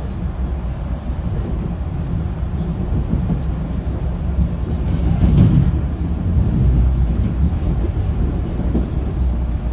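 Metro-North commuter train rolling along the track, heard from on board: a steady low rumble of wheels on rails, swelling briefly about five seconds in.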